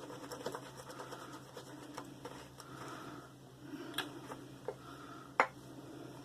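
Shaving brush whipping shave-soap lather in a lathering bowl: a soft, wet scratching swish, with a few sharp clicks, the loudest about five seconds in.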